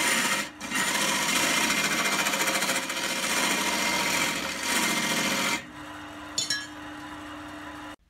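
A hand-held tool scraping against an old pine vase blank spinning on a wood lathe: a loud, rough rasping that lifts off for a moment about half a second in. After about five and a half seconds the tool comes off the wood, leaving the lathe running with a quieter steady hum, which cuts off abruptly near the end.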